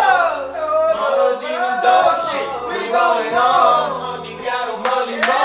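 A male K-pop vocalist singing live, a gliding, melismatic melody over a backing track with low bass notes.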